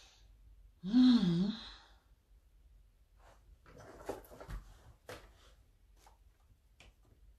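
A woman's breathy, voiced sigh about a second in, its pitch wavering up and down, followed by faint scattered clicks and rustles.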